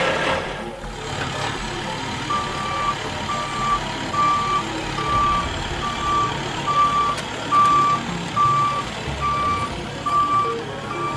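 Reversing alarm on a heavy road-works vehicle beeping steadily, a single-pitched beep about every 0.6 s, starting about two seconds in, over the low running of its engine.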